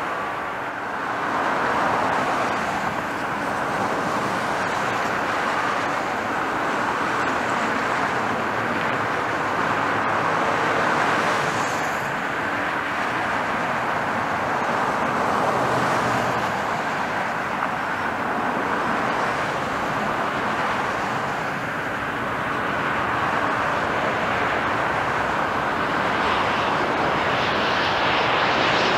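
Jet airliner engines: a steady rush of jet noise that grows louder and brighter near the end as a Boeing 737 on final approach, gear down, comes closer.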